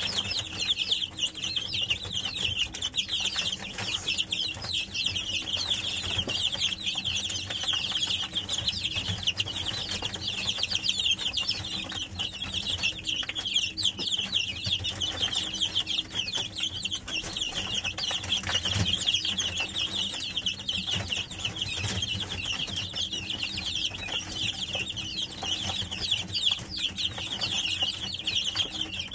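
A crowd of young chicks peeping without a break, many short, high, downward chirps overlapping, over a faint low steady hum.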